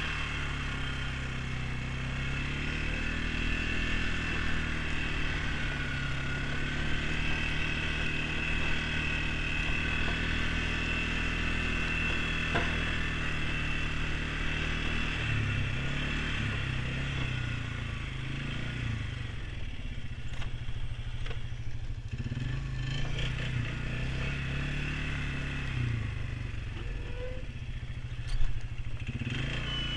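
ATV engine running as it is ridden, its pitch rising and falling with the throttle in the second half, with a steady high whine through the first half. A single short knock near the end.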